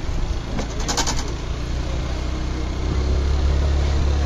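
Road vehicle running: a steady low rumble that grows louder about three seconds in, with a brief clatter about a second in.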